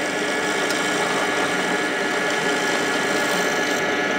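Axminster AW285PD bench pillar drill running steadily as a 4.5 mm lip-and-spur (brad-point) bit is fed down through a softwood block.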